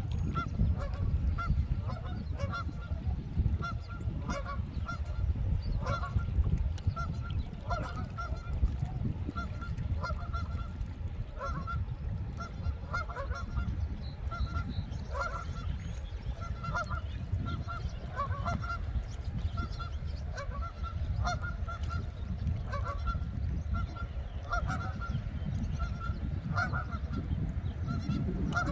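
Canada geese honking over and over in short, repeated calls, over a steady low background noise.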